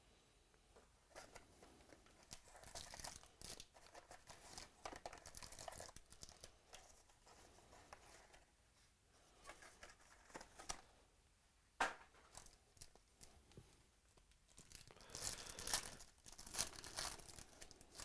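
Plastic wrapper of a trading-card pack being crinkled and torn open by hand, with the card box handled alongside; one sharp tap about two-thirds through. The tearing and crinkling is loudest near the end.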